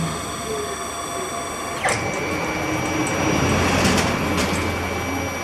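Bipolar two-phase stepper motors of a small CNC machine driving its axes, a steady whine with a click and a quick pitch sweep about two seconds in, after which the tone changes as the motors change speed.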